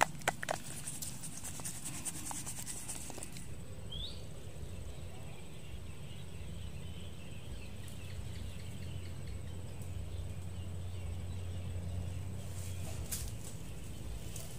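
Quiet outdoor ambience: a few clicks right at the start, then a faint steady hum, a single short rising bird chirp about four seconds in, and faint high insect calls.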